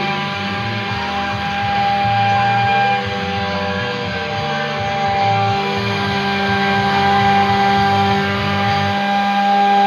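Background music with guitar and a stepping bass line, over steady held tones that continue after the bass stops near the end.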